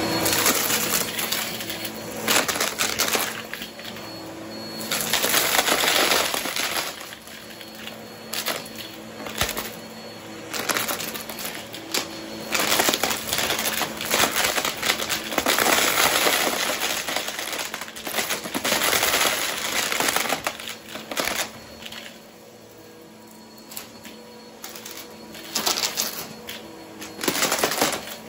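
Bissell upright vacuum cleaner running over a pile of wooden Scrabble tiles, coins and plastic chips on carpet. Loud bursts of rattling and clattering come every second or two as the pieces are sucked up, with a quieter stretch of plain motor hum a little over three quarters of the way through.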